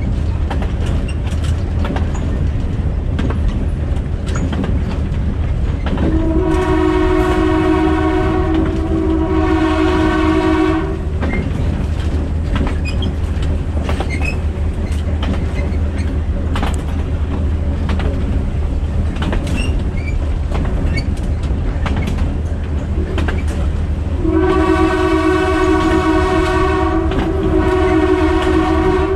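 GMD-1 diesel locomotive sounding its horn, a chord of several notes, in long blasts twice: from about six to eleven seconds in, and again from about 24 seconds on. Under it the train runs with a steady low rumble and the clickety-clack of wheels over rail joints.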